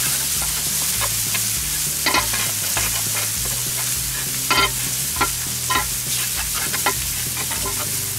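Lamb fillets and onions sizzling steadily on a hot steel fire plate, while a metal spatula scrapes across the plate several times.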